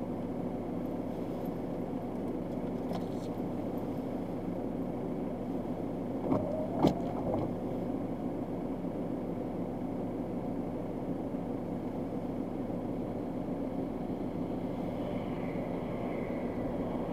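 Steady low hum of a stationary car idling, heard by the dashcam inside the cabin. About six to seven seconds in there are a few sharp knocks, and a faint high tone comes in near the end.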